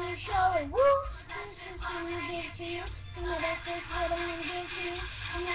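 A young girl singing, with a quick swooping slide up in pitch about half a second in, then a run of short held notes.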